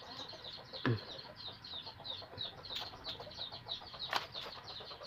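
A bird chirping over and over in quick, short high notes, several a second, with two sharp clicks, about a second in and near four seconds.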